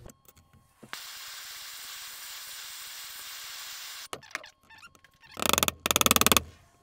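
Handheld propane torch lit with a click and burning with a steady hiss for about three seconds, heating a transmission's synchro operating sleeve, then shut off. Near the end comes a loud, rapid metallic rattle lasting about a second.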